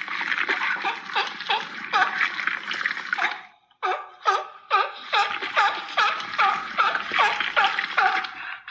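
Animated monster's creature sound effect: a dense run of short, falling, pitched squeals over a noisy, gurgling wash, breaking off briefly about three and a half seconds in before starting again.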